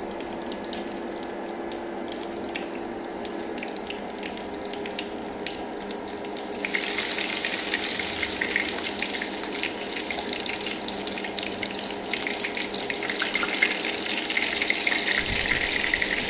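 Small freshwater shrimp fritters in crispy batter frying in hot oil in a pan, sizzling with a steady hiss and many small crackles. The sizzle turns louder and brighter about seven seconds in.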